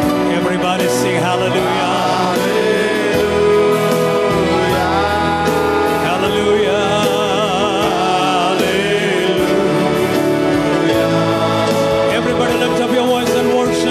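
Live Christian worship music: a man sings a worship song into a microphone over instrumental backing with a steady beat.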